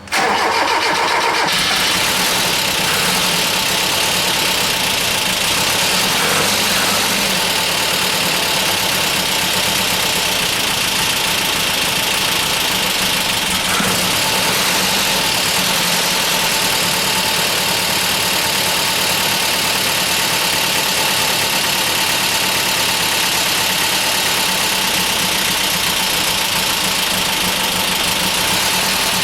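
Mazda B2200 pickup engine running steadily, misfiring on only two cylinders because cylinders 3 and 4 are not firing. The sound comes in suddenly right at the start.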